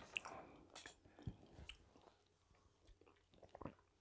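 Faint chewing with wet mouth clicks and lip smacks, heard close on a clip-on microphone, with a few soft knocks.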